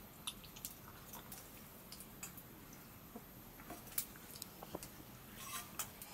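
Faint sounds of eating by hand from steel plates: chewing and mouth noises with scattered small clicks and taps of fingers, plates and steel cups, the sharpest about four seconds in.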